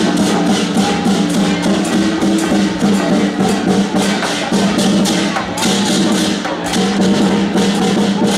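Temple-procession percussion band playing: cymbals and gongs struck rapidly, about four times a second, with drums, over steady held notes.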